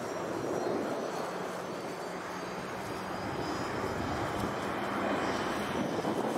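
Boeing B-52H Stratofortress's eight TF33 turbofan engines in a steady, dense jet roar as the bomber flies overhead, the sound swelling slightly as it closes in.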